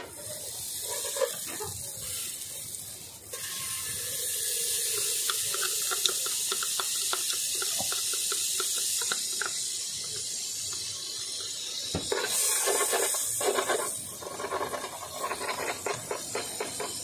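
Crabs cooking in coconut milk in a steel pot over a wood fire: a steady hiss of simmering liquid, with clusters of small clicks and knocks as the pot's contents are handled.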